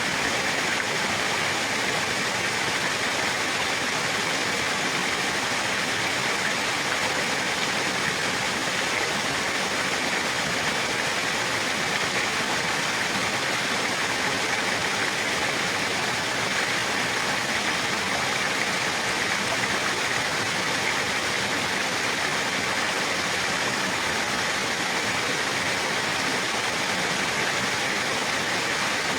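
Flowing water rushing steadily and evenly, with no change in level.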